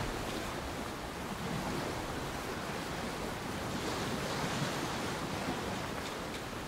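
Ocean waves and wind: a steady, even rush of sea noise.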